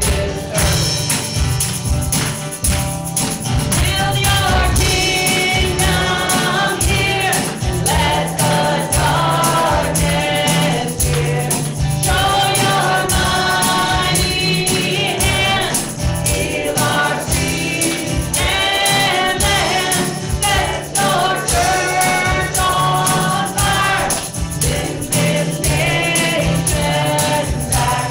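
Gospel-style worship song: several voices singing together over a band with sustained bass notes and a steady beat.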